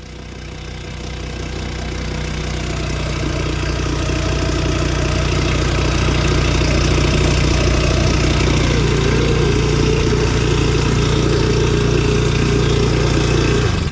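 Small outboard motor of an inflatable boat running under way, a steady low engine note that builds over the first few seconds and then holds steady before cutting off suddenly at the end.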